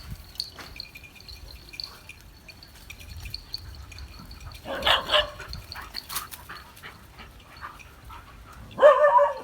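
Dogs barking as they tussle: two quick barks about five seconds in and a longer, louder bark near the end, with faint scattered ticks between.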